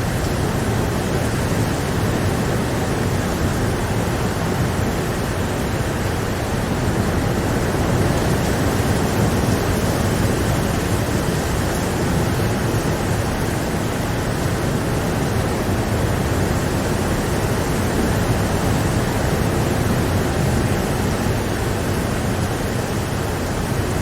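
Steady rain falling, an even, unbroken rushing hiss that is fuller in the low range than in the high.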